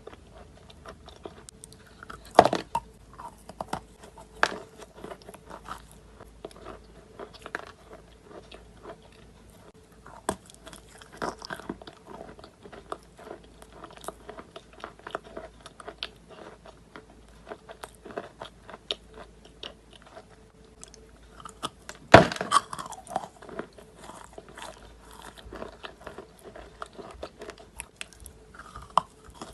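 Person biting and chewing lumps of Khrapovsky chalk: dry, crackling crunches throughout. Two bites stand out as the loudest, one about two and a half seconds in and one about three quarters of the way through.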